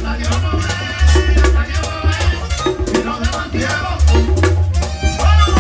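Merengue típico band music playing loudly, with a steady scraped-shaker rhythm over a heavy bass line and drums.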